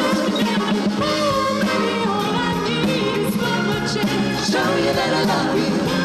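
A female vocal trio singing a song live with a symphony orchestra.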